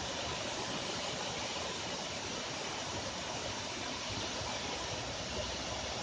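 Tall waterfall pouring down a rock face: a steady, even rush of falling water.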